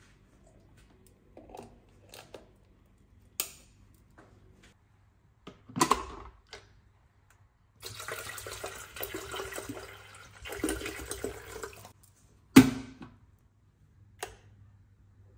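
Water poured from a plastic bottle into a plastic electric kettle, a splashing, running sound lasting about four seconds, between sharp plastic knocks from handling the kettle and its lid; the loudest knock comes just after the pouring stops, and a small click follows near the end.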